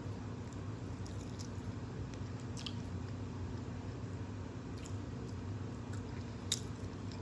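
Quiet mouth sounds of a person chewing food, with a few soft, wet clicks over a steady low background.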